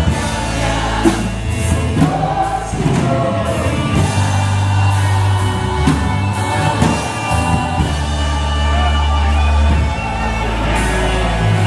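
Live gospel worship song: voices singing over a band with a strong bass line and a regular drum beat.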